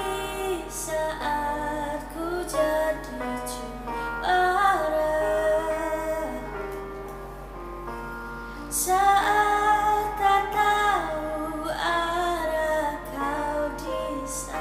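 A woman singing a song solo, moving between held notes, with a brief softer stretch around the middle before she comes back in louder.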